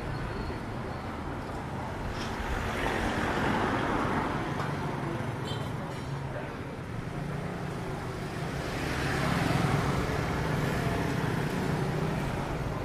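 Street traffic: a steady background of running engines, with vehicles passing close by twice, swelling about a quarter of the way in and again about three quarters of the way through.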